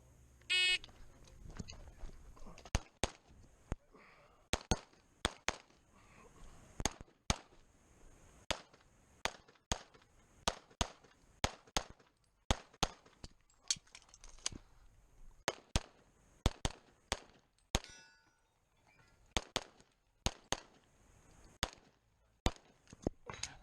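Electronic shot-timer beep, then a Glock pistol firing a long string of single shots at roughly one to two a second, with a brief break near the end before the last few shots.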